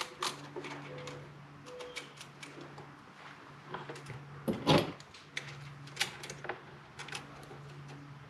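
Small clicks and taps of parts and tools being handled on a workbench, with one louder knock a little past halfway, over a faint steady hum.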